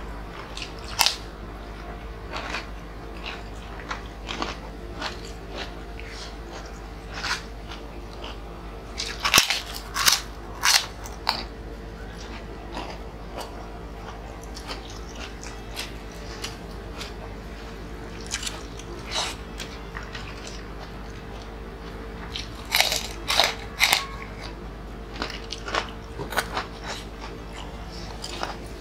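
Close-up crunching and chewing of crispy snack crackers (shrimp-flavoured croquette chips and fish crackers) eaten by hand with rice, in irregular bites. The crunches come loudest around ten seconds in and again around twenty-three seconds in, over a steady low hum.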